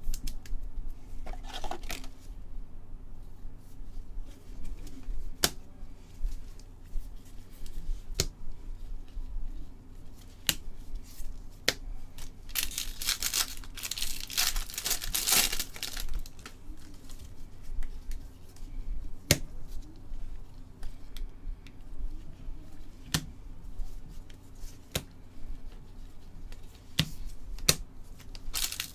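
Baseball card packs being torn open and their wrappers crinkled, with sharp clicks and snaps as the cards are flipped through and set down. A long stretch of rustling and tearing comes about halfway through, and another starts near the end.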